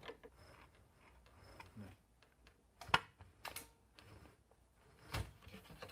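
Scattered clicks and knocks of printer parts being handled while the printer is being taken apart, the sharpest about three seconds in and another near the end.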